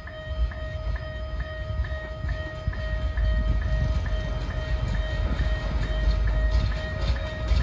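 Narrow-gauge Kiha 1 railcar approaching on 762 mm track. Its low running rumble grows louder from about three seconds in, and its wheels click over the rail joints near the end. Throughout, a steady ringing tone pulses about twice a second.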